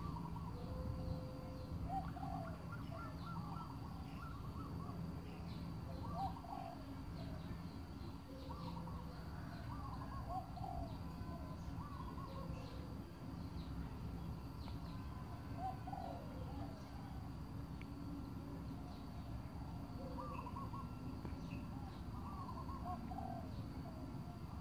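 Wild birds calling across open wetland: short hooting and cooing notes scattered all through, over a steady low rumble.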